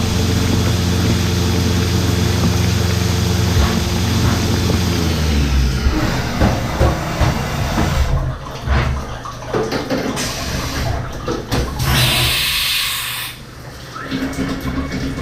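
CNC milling machine running with a steady hum that winds down about five seconds in, followed by an uneven spraying and splashing of coolant and a burst of hiss about twelve seconds in.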